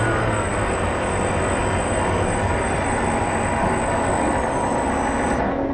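A radio-controlled model catamaran ferry's drive motor and propellers running under way, heard from on board as a steady rushing noise with a thin high whine. The whine drops out near the end.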